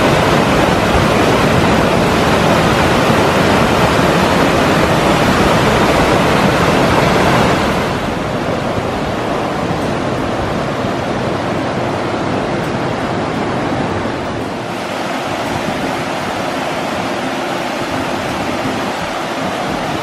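A rocky mountain stream cascading over boulders, giving a steady, loud rush of white water. The level drops a step about a third of the way through and dips again past the middle as the view moves to other cascades.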